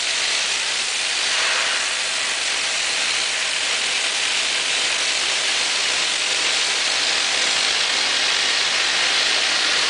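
Five oxy-fuel torches of a CNC flame-cutting machine cutting thick steel plate, giving a steady, loud hiss of the cutting jets.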